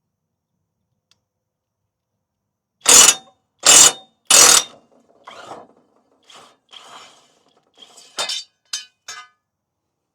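Three loud clanks about a second apart, then softer rattling and a few sharp clinks near the end: metal tools or parts being handled during work on a riding mower's cutting blades.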